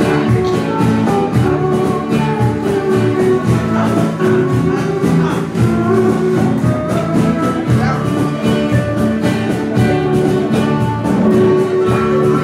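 Live band of guitars, steel guitar, bass guitar and percussion playing a song with a steady beat.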